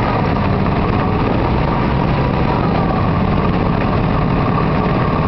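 ARGO amphibious ATV's engine running steadily while the vehicle is afloat, crossing a flooded stream.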